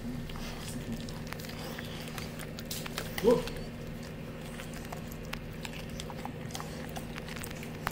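A Labrador retriever chewing raw vegetables, with scattered crisp crunching clicks over a steady low hum. About three seconds in comes one short, loud, voice-like sound.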